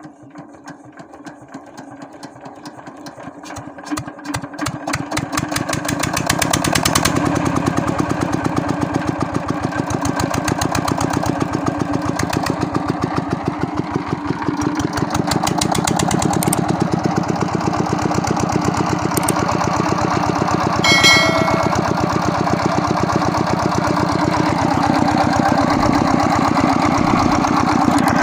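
Freshly rebuilt 25 HP LD diesel engine, with a new sleeve, piston and rings, being started. Its strokes pick up and grow louder over the first few seconds until it settles into steady, even running about six seconds in. A brief high-pitched tone sounds about 21 seconds in.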